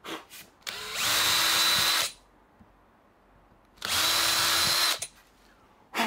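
Cordless drill boring pilot holes into a wooden board, in two runs of about a second each. Each run starts with the motor's whine rising as it spins up, then holds steady. There are a few light clicks of handling around the runs.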